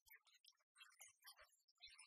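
Near silence, with only faint, scattered clicks and crackle.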